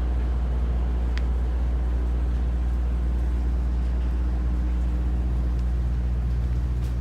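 Ship's engine running steadily with a deep, even drone, and a single faint click about a second in.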